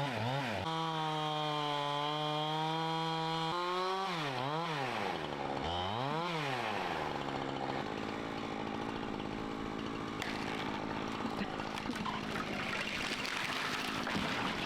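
Chainsaw running at high speed, its pitch swooping up and down a few times, then turning rougher and steadier from about eight seconds in as the chain cuts into the trunk of a dry, fire-killed Douglas fir being felled.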